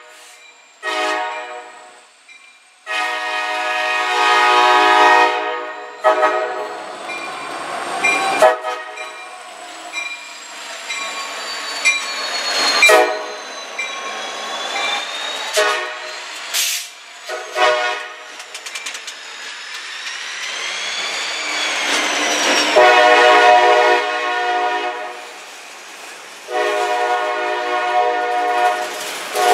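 A CSX freight diesel locomotive sounding its horn in repeated blasts, a short one about a second in and then long ones, as it rolls slowly down street track past the camera. Between the blasts, high wheel squeal and sharp clicks come from the train's wheels as hopper cars roll by.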